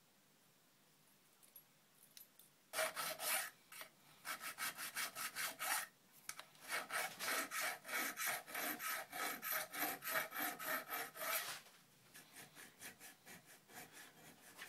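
Hand file rasping across the corner of a mild steel horn block held in a vice, filing it to a marked radius. Quick, evenly repeated strokes start about three seconds in and get lighter for the last few seconds.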